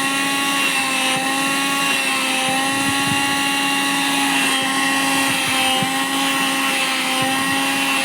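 Vacuum cleaner running steadily with a constant motor whine as it sucks at a pair of denim jeans, with a few faint soft knocks.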